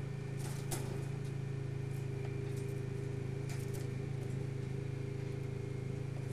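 A steady low hum with a few faint, short clicks over it.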